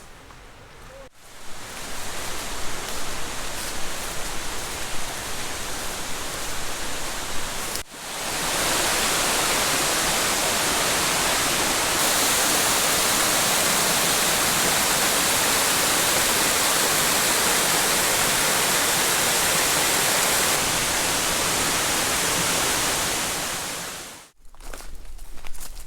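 Loud, steady rushing noise, split by sudden cuts into an uneven stretch and then a very even stretch that fades in and fades out.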